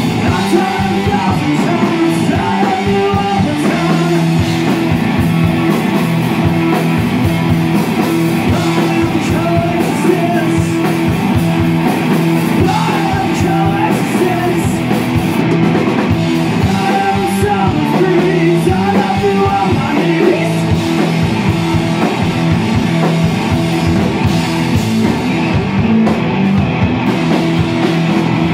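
Live rock band playing loud and steady: electric guitar chords and a drum kit, with a singer's voice over them at times.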